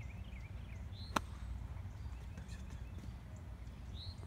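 A single sharp click of a golf club striking a ball about a second in, against a low steady rumble of wind. A small bird chirps in quick repeated notes at the start and again near the end.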